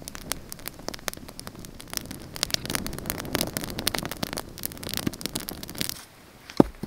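Log campfire crackling with a dense run of sharp pops, which drops away about six seconds in. One loud, dull thump follows near the end.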